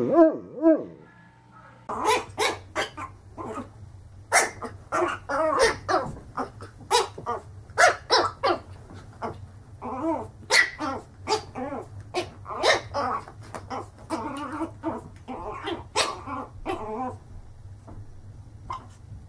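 A large mastiff-type dog finishes a wavering howl just under a second in. After a short pause, a small fluffy puppy yaps in a long run of quick, short barks that thin out near the end.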